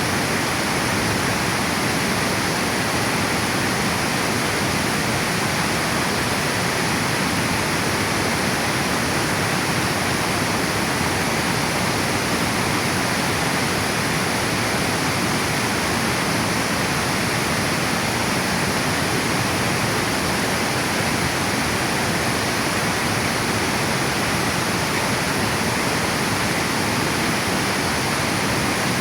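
Water pouring over a river dam: a steady, even rush of falling water with no breaks.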